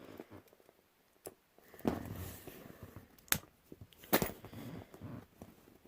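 A rubber mallet striking a bump key in a padlock: a few sharp, separate clicks, spread a second or two apart.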